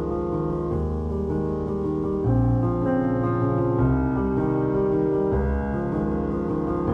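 Background piano music: slow, held chords that change every second or two.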